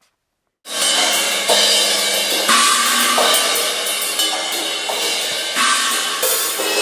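Tama Starclassic Bubinga drum kit played hard in a metal style, with a steady wash of Zildjian cymbals and hi-hat over snare and drums. It starts about half a second in and cuts off abruptly near the end.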